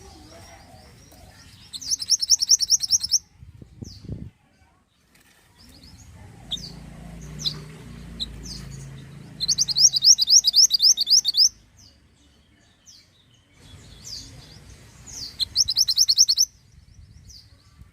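Mantenan (minivet) song: three bursts of rapid, evenly repeated high trilling notes, each one to two seconds long, with single high chirps in between.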